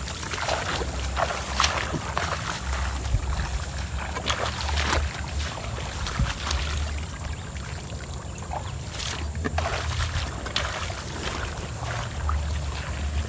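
Irregular splashing and sloshing in shallow marsh water as a person wades and drags a mesh hand net through submerged grass, with rustling of wet grass stems. A low wind rumble on the microphone runs underneath.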